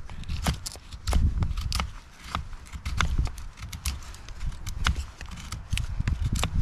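Fixed-blade knife shaving thin curls down a stick of split softwood kindling braced on a wooden block, making a feather stick for fire-lighting. Short, sharp scraping cracks come irregularly, about three a second.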